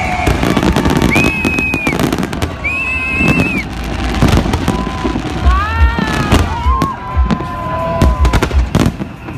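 Fireworks display: a dense run of crackling bangs with deeper booms, and several whistling tones that rise, hold and fall over them.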